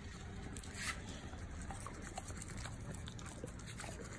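Faint wet clicks and mouth sounds from a Cane Corso as its lips are lifted for toothbrushing, with a slightly sharper click about a second in.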